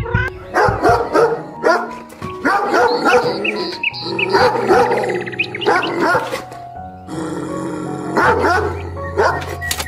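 Canine barks and yaps in quick series, with a short break about three quarters of the way through, over background music with sustained tones.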